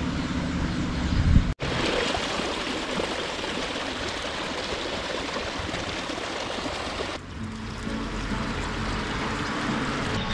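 The upper Aufseß, a small stream near its source, flowing and splashing steadily. The sound breaks off and changes abruptly about one and a half seconds in and again about seven seconds in.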